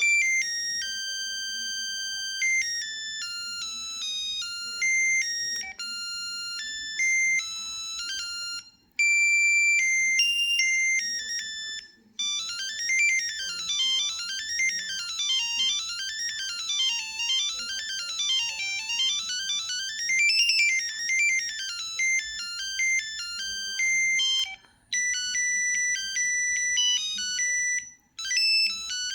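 LG Cyon mobile phone ringtones playing one after another: thin, high-pitched synthesized melodies, each stopping abruptly before the next begins. The longest one, in the middle, is a run of arpeggios sweeping up and down.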